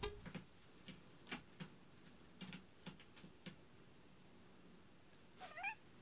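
Scattered light clicks and taps of a cat playing with a hanging feather toy, then, near the end, one short wavering cat chirp, the loudest sound.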